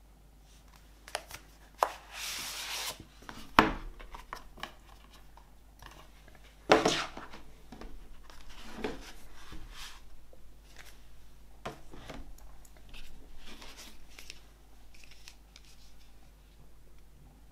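A cardboard and paper album box set being handled and opened by hand: card and paper sliding and rubbing, with scattered taps and two sharp knocks, the loudest about four and seven seconds in.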